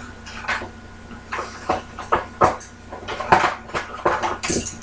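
Irregular clicking and clattering of small hard parts being handled, about a dozen sharp knocks at uneven spacing, several loud ones in the second half.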